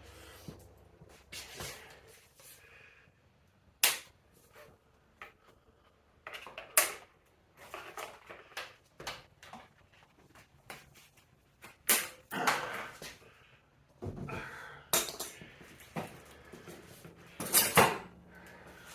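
Zip ties being snipped with wire cutters and packaging pulled off a boxed e-bike: a scattered series of sharp snaps and clicks with rustling between them, the loudest snap near the end.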